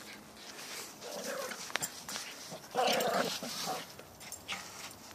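A small dog vocalizing in short bursts while it plays with a soccer ball, the loudest about three seconds in.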